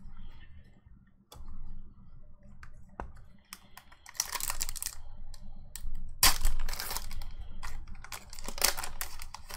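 Foil Pokémon booster pack wrapper crinkling and being torn open by hand, in three crackly bursts, the loudest a little past the middle, after a few light taps.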